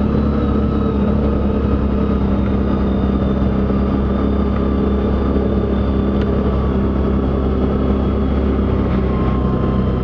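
ATV engine running steadily at an even, constant speed, a low drone with a steady pitch.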